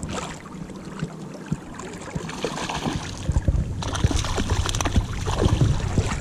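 A hooked rainbow trout splashing at the river's surface as it is played toward the net, over the rushing flow of the river. The splashing grows louder in the last couple of seconds.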